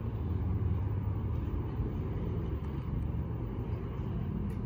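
Steady low rumble of distant vehicles.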